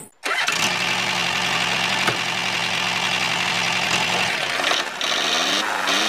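Engine running steadily, starting abruptly a moment in and rising in pitch a little after five seconds.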